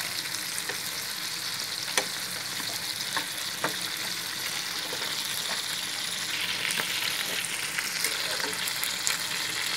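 Chicken drumsticks and thighs frying in oil in a pan, the fat rendering out of the skin: a steady sizzle with a few sharp pops.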